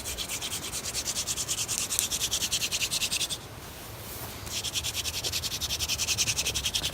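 Hand drill fire-making: a wooden spindle spun rapidly back and forth between the palms against a wooden hearth board, making a fast rhythmic rubbing scratch as friction heats the wood dust. The spinning breaks off for about a second midway, then resumes.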